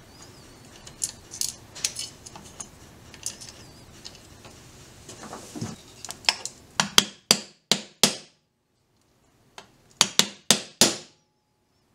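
Small steel lock parts clicking and tapping as they are fitted by hand, then a hammer striking a steel punch held on the steel lock case. The strikes come as a quick run of about six sharp, ringing metal blows, a pause, and four more near the end.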